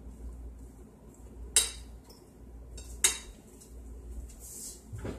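Two sharp clinks of a metal utensil against a plate, about a second and a half apart, over a low steady hum.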